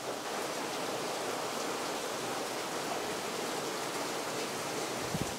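Steady rushing hiss, with a single low thump about five seconds in.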